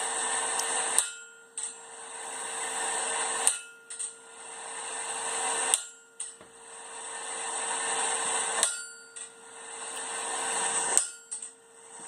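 Blacksmith's hammer striking hot steel on an anvil while forging tong jaws: five sharp, ringing blows spaced two to three seconds apart, over a steady hum and hiss.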